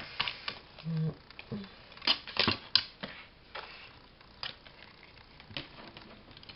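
Paper and tulle handled on a craft table: rustling with a string of sharp clicks and snaps, loudest about two to three seconds in.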